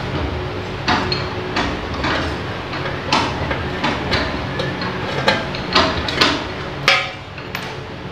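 Irregular sharp metal knocks and clinks, about a dozen spread unevenly, from hand tools working on a gondola hoist machine as its motor is being unbolted and taken off.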